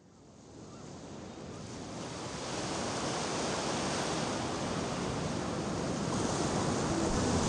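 Ocean surf washing on a beach, a steady rush of waves fading in from silence over the first couple of seconds.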